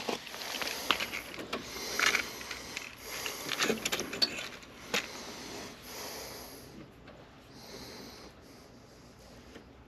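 Small clicks, taps and rustling from hand tools and wiring being handled at close range, dying away to a faint hiss after about six seconds.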